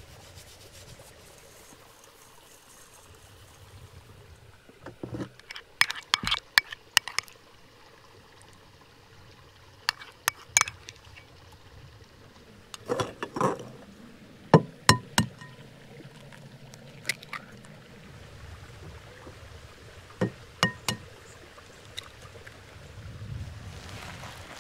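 Cooking utensils and cookware knocking and clinking in short irregular clusters of sharp clicks, over a quiet outdoor background.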